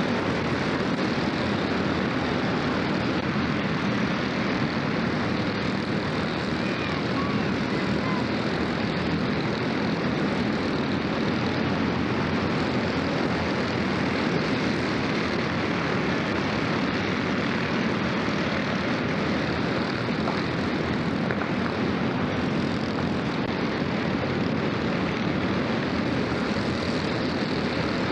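Racing kart engines running on the track, blending into a steady, unbroken buzz with no single engine standing out.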